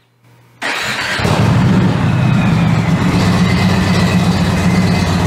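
A 2018 Indian Chieftain's Thunder Stroke V-twin starting up. It fires suddenly about half a second in and settles into a steady idle.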